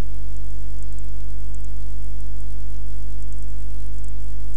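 Steady low electrical hum with many overtones, unchanging throughout, over a faint hiss with a light crackle.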